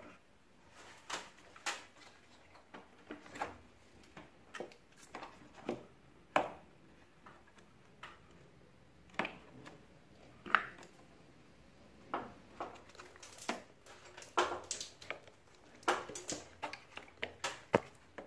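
Irregular clicks and knocks of hard plastic parts being handled as the drain pan of a split air-conditioner indoor unit is unclipped and taken off.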